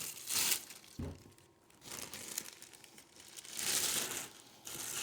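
Product packaging being crinkled and torn open in several rustling bursts, with a light knock about a second in.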